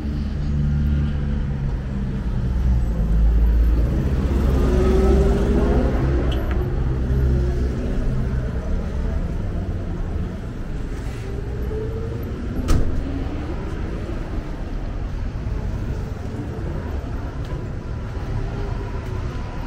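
City street traffic: a motor vehicle's engine runs close by, loudest over roughly the first eight seconds, then lighter traffic carries on. One sharp click stands out about two-thirds of the way through.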